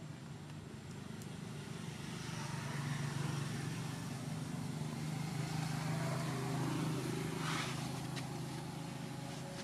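A low engine drone, like a motor vehicle passing, building up a couple of seconds in and easing off near the end, with a brief hiss late on.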